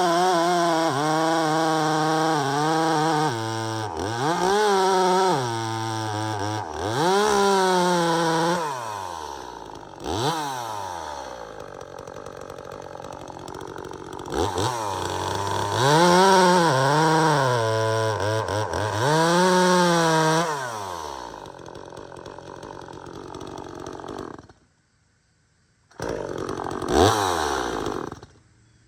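Two-stroke top-handle chainsaw running and being revved up and down again and again, its pitch sagging lower for a few seconds in the middle. Near the end the sound drops out for about a second and a half, then the saw revs once more and falls away.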